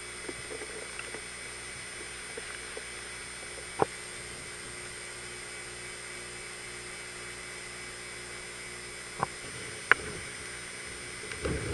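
Steady hiss of hurricane wind and rain with a faint whine through it, broken by three sharp clicks: one about four seconds in and two close together near nine and ten seconds. A rushing swell begins near the end.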